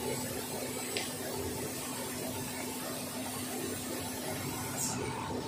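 Non-woven fabric slitting and rewinding machine running steadily, a constant mechanical hum and whir. There is a brief click about a second in and a short high hiss near the end.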